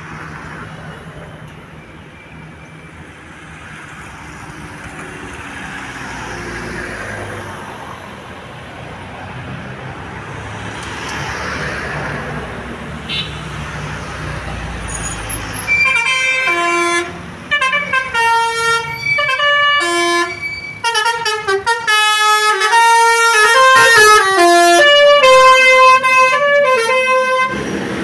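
Engine and road noise of a large vehicle, then just past halfway a Basuri V3 telolet horn plays a quick tune of stepped tones. The tune gets louder and stops just before the end.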